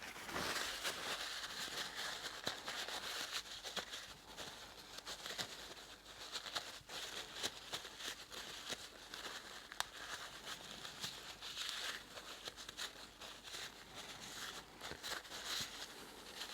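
Continuous rustling and crinkling broken by many small clicks and taps, as hands handle small removed engine parts.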